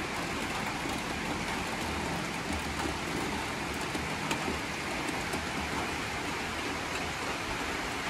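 Steady rain falling on corrugated metal roof sheeting, an even hiss with a few faint ticks of single drops.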